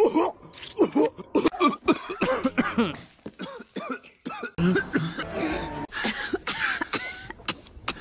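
Cartoon characters coughing one after another: a fast string of short, rough coughs.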